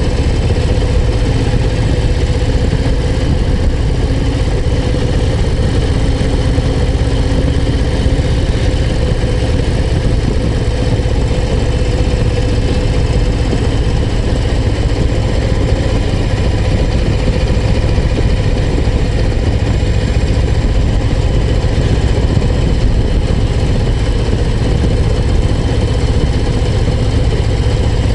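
Harley-Davidson Low Rider ST's Milwaukee-Eight 117 V-twin engine running steadily as the motorcycle rides along, its engine note holding even with no big revving.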